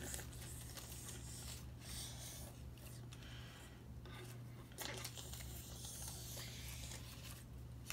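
Faint rustling and rubbing of paper cutout puppets being handled and slid across a table, over a low steady hum.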